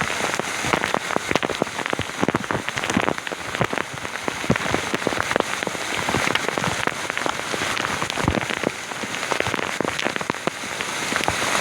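Waterfall water splashing down, a dense steady spatter of drops and splashes.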